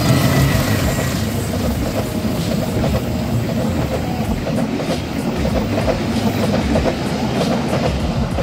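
A KAI diesel locomotive passing close by, loudest at the start, followed by a long string of passenger coaches rolling past with a steady rumble and the clatter of wheels on the track.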